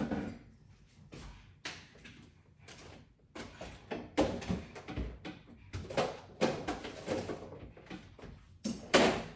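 Dishes of fish being put into a refrigerator: a string of knocks and clatters of plates against shelves and the fridge door, the loudest knock near the end.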